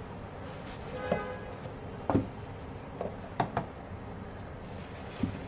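Hard plastic steamer parts knocking and clattering as they are lifted out of a cardboard box and handled: about six short, irregular knocks, the loudest about two seconds and three and a half seconds in.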